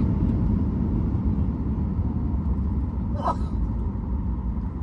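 Boeing 737 MAX 8's CFM LEAP-1B engines and wheels rumbling on the runway during the landing rollout, heard from inside the cabin, easing off slightly as the airliner slows. A brief cabin noise comes about three seconds in.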